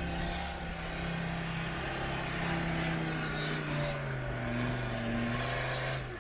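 A 4x4 SUV's engine running as it climbs a snowy slope, its note slowly falling in pitch, then cutting off abruptly.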